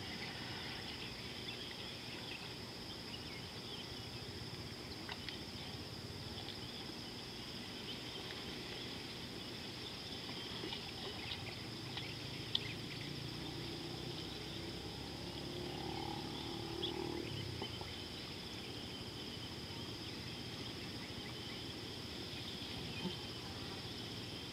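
Outdoor savanna ambience: a steady high-pitched insect drone with scattered chirps and clicks over a low steady rumble, and a brief faint animal call about two-thirds of the way through.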